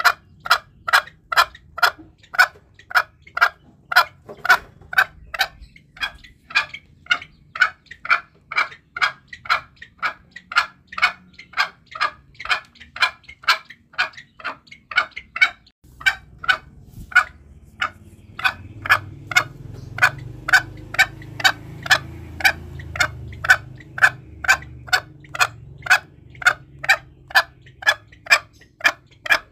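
Green junglefowl calling in short, sharp notes repeated about twice a second in a steady, unbroken rhythm: a hunting lure call. A low rumble joins past the middle and fades a few seconds before the end.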